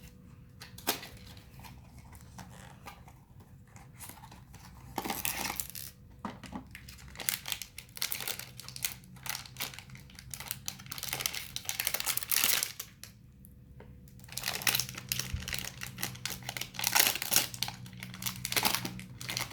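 Blind-box toy packaging being opened by hand: the wrapper crinkling and tearing in irregular bursts, with a short pause about two-thirds of the way through.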